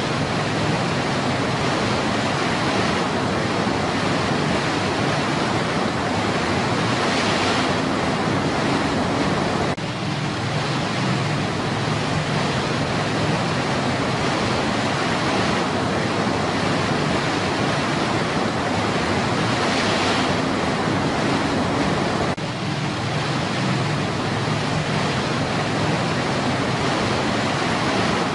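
Steady rush of white water from a rocky river cascade tumbling over boulders.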